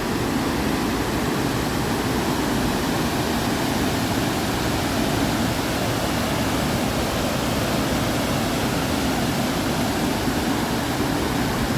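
Waterfall rushing: a steady, loud roar of falling river water.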